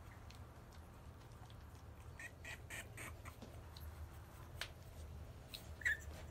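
French bulldog puppies squeaking: a quick run of four or five short, high squeaks about two seconds in, and a louder single squeak near the end, over a low steady hum.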